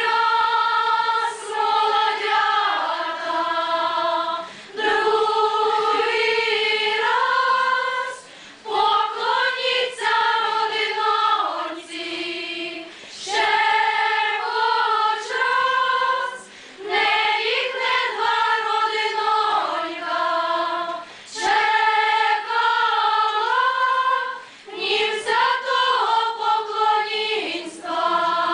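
A choir of mostly female voices singing a slow Ukrainian folk song without accompaniment, in long held phrases with short breaks between them.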